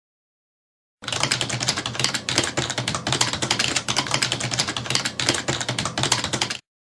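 Rapid, dense clicking like fast typing on keys, starting abruptly about a second in and cutting off sharply near the end, over a faint low hum.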